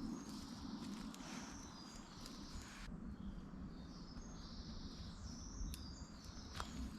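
Birds singing in woodland: high, wavering phrases that come and go over a steady low background, with a couple of short sharp clicks near the end.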